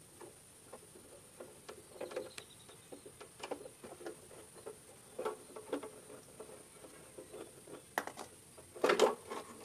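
Screwdriver working screws out of a stainless-steel gas stove body: scattered light metallic clicks and scrapes, with a louder cluster of knocks and handling near the end.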